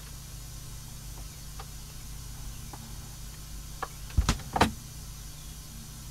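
Sony PS-LS60P automatic turntable going through its auto-start cycle: faint mechanical clicks as the tonearm lifts and swings across, then two louder clunks a little over four seconds in as the arm mechanism lowers it onto the record, over a low steady hum.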